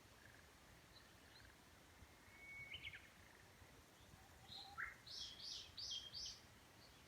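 Songbird singing faintly: a short call a few seconds in, then a quick phrase of four bright repeated notes about five seconds in, over a faint low background hiss of breeze in the woods.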